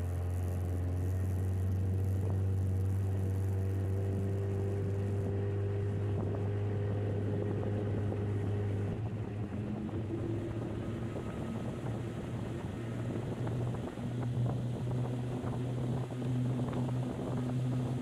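A motor running steadily with an even hum. About nine seconds in its pitch steps up, and it then runs rougher under a crackling, splashy noise.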